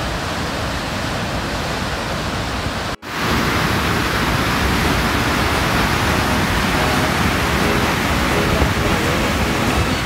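Steady rush of water from a river waterfall and whitewater pouring over rocks. About three seconds in it cuts out for an instant and comes back louder and brighter.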